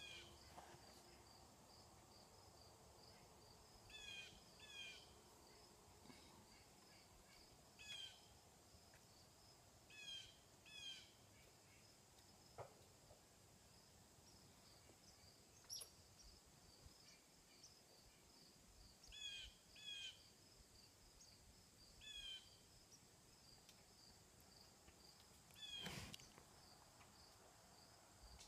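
Faint outdoor background of a bird calling in short calls, mostly in pairs a second apart, every few seconds, over a steady high insect trill. There is a single sharp click near the end.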